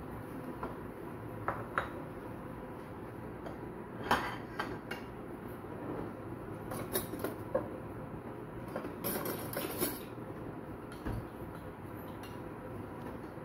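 Kitchen utensils scraping and clinking against a frying pan and a small ceramic bowl as chutney is scooped out: scattered clinks, the sharpest about four seconds in, and a longer scrape about nine seconds in, over a steady background hiss.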